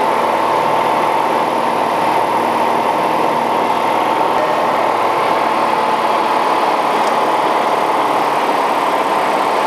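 A Piper Cherokee Six's six-cylinder piston engine and propeller running steadily during the landing over the runway, heard loud inside the cabin.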